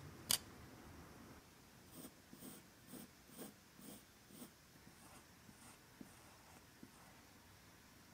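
A pencil sketching on copy paper over a wooden table: short scratchy strokes, about two a second, fading to a few faint ones in the second half. A single sharp tap comes just after the start.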